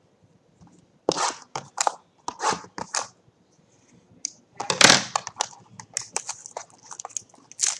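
Trading-card box packaging being torn and crinkled open: a run of short scratchy strokes, then one louder tear about five seconds in.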